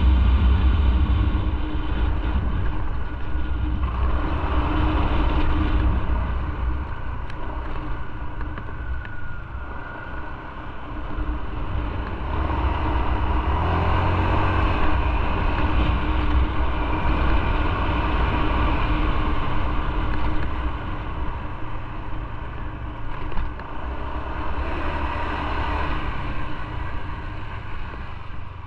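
Motorcycle underway on the road: a low engine rumble under steady wind and road noise. The engine eases off about ten seconds in, then picks up again.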